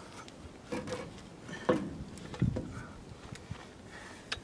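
A few separate knocks and scrapes as a wooden board and a steel railroad track jack are worked into place in the gravel under a shipping container's edge, the heaviest, deepest knock about halfway through.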